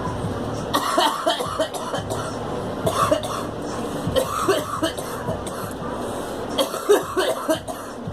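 A girl coughing in about four short fits of several coughs each, which she puts down to having swallowed something wrong.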